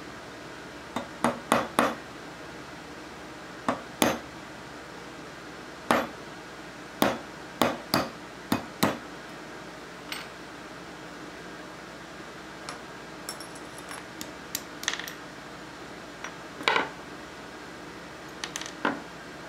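A small hammer tapping a pin punch to drive a pin out of an Ithaca Model 49-S rifle's receiver: sharp metallic taps in irregular groups of two and three, fewer and mostly lighter in the second half.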